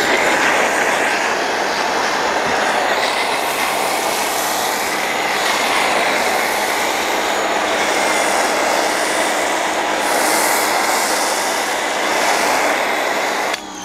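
Pressure washer running with an Amazon Basics foam cannon spraying soap foam, a steady hissing rush that cuts off suddenly near the end.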